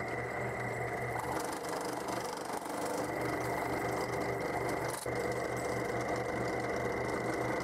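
Benchtop drill press running steadily with a high whine and a pulsing low hum while a circle-cutting bit cuts a hole through a board.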